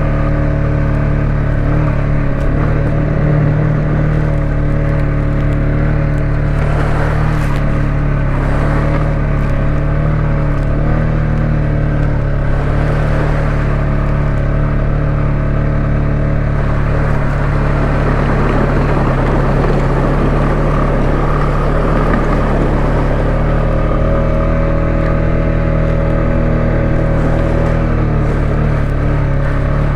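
ATV engine running steadily as it travels a rough dirt trail, its drone easing slightly in pitch and picking back up, with a rougher, noisier stretch about two-thirds of the way through.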